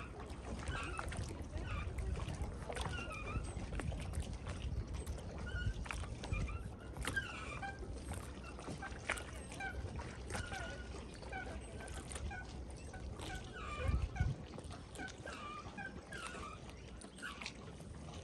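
Outdoor ambience: short animal calls repeat every second or so over a steady low rumble, with scattered light ticks and a brief louder low swell near the end.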